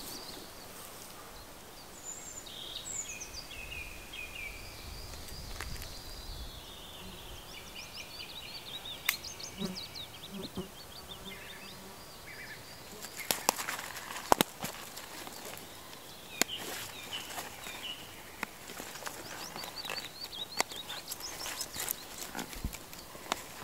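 Songbirds singing trilled, chirping phrases through the first half. From about halfway on come sharp clicks, taps and rustles of gear being handled, with bird calls continuing behind them.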